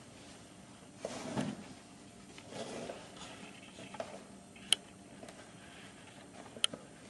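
Heavy cotton canvas rustling faintly as a sail needle and waxed twine are drawn through it and pulled tight while a grommet is hand-stitched, with two short, sharp clicks past the middle and near the end.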